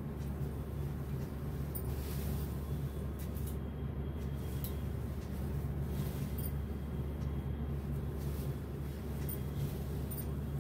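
Steady low room hum, with faint rustles of a silk saree being handled.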